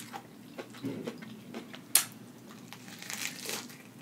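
Crisp lettuce wrap crunching and crinkling as a burger is bitten and chewed close to the microphone, with a sharp snap at the start, another about two seconds in, and a crunchy rustle about three seconds in.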